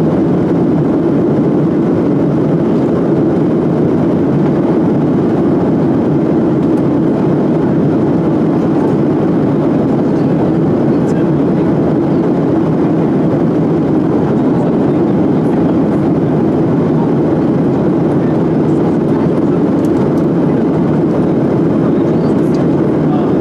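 Airliner cabin noise heard from inside the cabin: the steady, even rush of jet engines and airflow, with no change in level.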